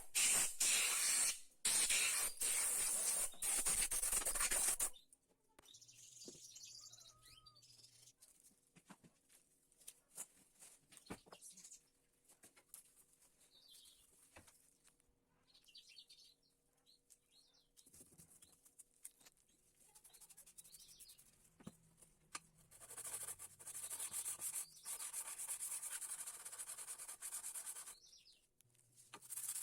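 Thickness planer knife being rubbed on an abrasive to sharpen it: a loud, gritty scraping for about five seconds, then faint clicks and handling, then more scraping near the end.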